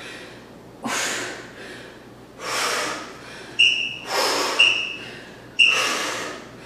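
A woman breathing hard while exercising: sharp, forceful exhales about every second or two, a few with a short whistle-like tone.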